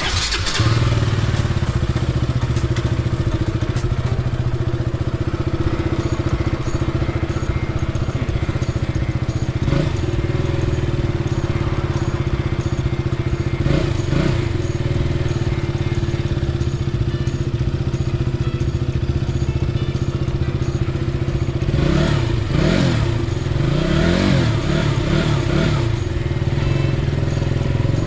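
KTM Duke 200's single-cylinder four-stroke engine running under way. The engine note is steady, with brief dips and rises in pitch about ten and fourteen seconds in and several more near the end, as the revs drop and pick up again.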